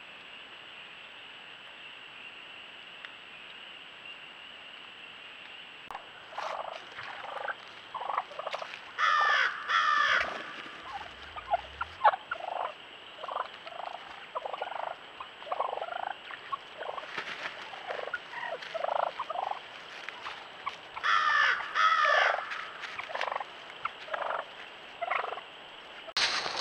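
Wild turkey toms gobbling twice, about twelve seconds apart, amid many shorter calls from the flock. The first few seconds hold only a steady faint hiss.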